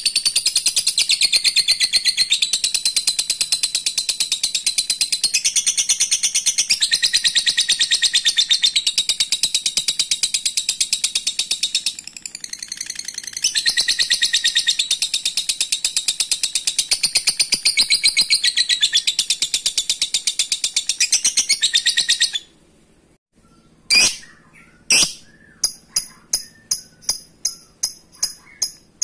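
Lovebird's ngekek: a long chattering trill of rapid, high repeated notes that falters briefly about halfway and stops a little after twenty seconds in. After a short pause come two sharp chirps, then a quick series of short chips.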